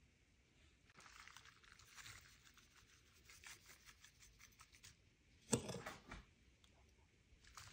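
Faint scraping and rustling of a spoon scooping crumbly crisp topping from a glass bowl and scattering it over apple chunks in a glass baking dish, with one sharp knock about five and a half seconds in.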